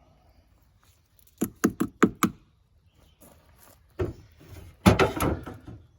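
Four or five sharp knocks in quick succession, then a longer, louder clatter of knocks a little later.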